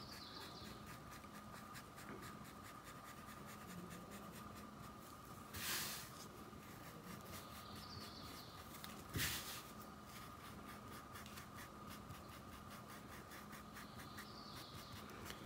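Faint scratchy rubbing of a small makeup brush scrubbing grey paint into cotton cloth laid on a board. A brief louder swish comes nearly six seconds in, and a short knock a few seconds later.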